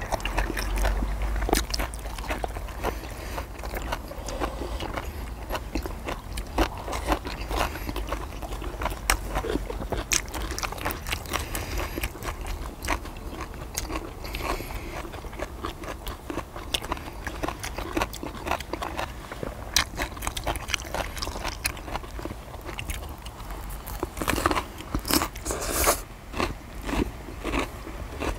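Close-miked chewing and biting of grilled pork belly and gochujang-glazed deodeok root, with many short crunchy clicks and crackles throughout. A louder run of clicks comes near the end.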